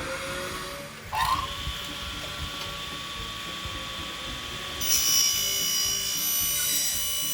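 Power drill spinning up about a second in and running with a steady whine, which grows louder and higher-pitched about five seconds in.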